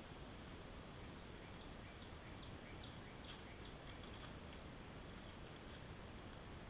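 Quiet wooded-yard ambience with a steady hiss, and a bird chirping a quick run of short notes, about four a second, from about a second and a half in to about four seconds in.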